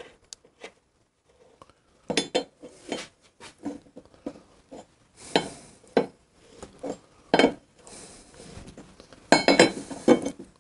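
Wrenches clinking on the rear axle sleeve nut of a Harley-Davidson Shovelhead as it is tightened. The sound is a string of irregular metal clinks and taps, a few with a short ring, with a quick cluster near the end.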